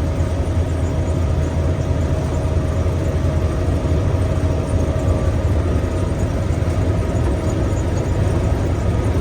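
Combine harvester running steadily with the header down, picking soybeans: a constant low drone with a faint steady whine over it.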